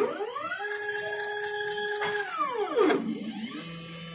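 Stepper motors of a DIY CNC hot-wire thermocol cutter whining as the machine moves. The pitch climbs, holds steady, then glides down with a sharp tick just before three seconds, and climbs again to a lower steady whine.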